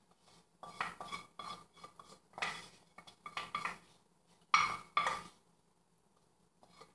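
Utensil scraping and clinking against a nonstick frying pan as thick meat filling is pushed out of it into a baking dish, a run of short, uneven strokes that stops about a second and a half before the end.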